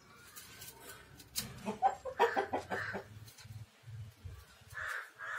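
Hens clucking: runs of short clucks, one about one and a half seconds in and another near the end.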